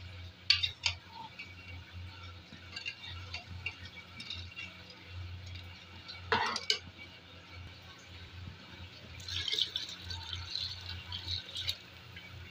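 Spoon clinking and scraping against an aluminium pressure cooker as soaked whole black mash daal is stirred into wet meat masala, with sharp clinks about half a second in and again around six and a half seconds in. From about nine seconds in there is splashing as water is poured into the pot, over a low steady hum.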